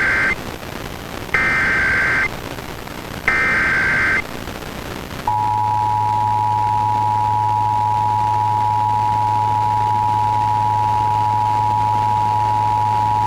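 Emergency Alert System broadcast tones for a required monthly test. Three SAME header data bursts, each about a second long, come first, then the two-tone attention signal starts about five seconds in and holds steady to the end, with a low hum under it.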